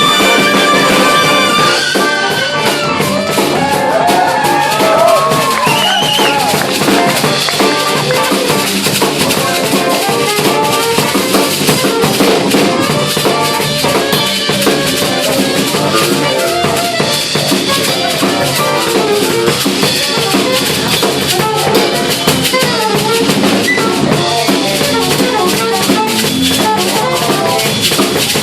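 Big band playing jazz: a busy drum kit and cymbals driving under brass and horn lines, with a horn melody bending in pitch a few seconds in.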